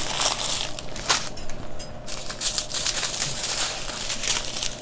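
Small plastic bags of diamond-painting drills crinkling and crackling as they are handled and shuffled, with a short pause just before the middle.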